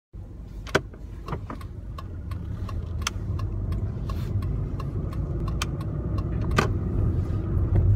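Car engine and road rumble heard inside the cabin, growing gradually louder, with scattered light clicks and knocks, the sharpest a little under a second in.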